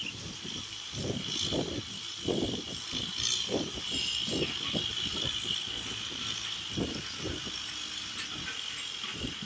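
Kubota M6040SU tractor's diesel engine running under load while pulling a rotary tiller through dry soil, with an uneven low rumble.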